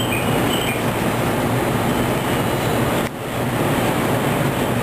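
Train noise on a railway platform: a passing electric train running steadily, with a short break about three seconds in where the picture cuts.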